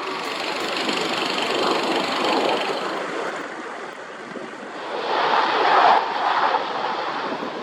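Strong gusty wind buffeting the microphone, a rushing noise that swells to its loudest about five to six seconds in.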